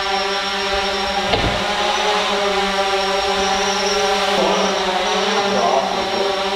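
Small quadcopter drone flying indoors: a steady multi-pitched propeller hum whose pitch wavers up and down in the second half.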